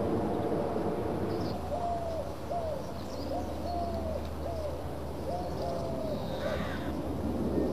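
A dove cooing: a series of about seven short coos in uneven groups, some drawn out and some clipped, over a low steady hum.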